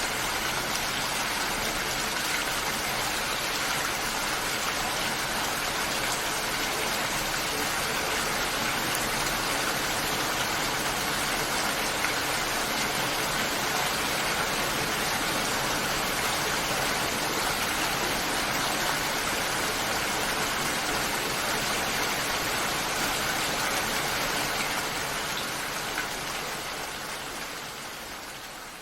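Steady rain falling on leaves, a dense even hiss that fades out over the last few seconds.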